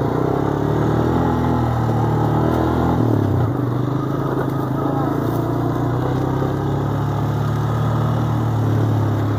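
ATV engine running steadily while riding a trail, its note dipping briefly about three seconds in.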